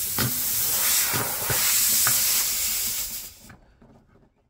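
A loud, steady hiss with a few faint clicks in it, dying away about three and a half seconds in.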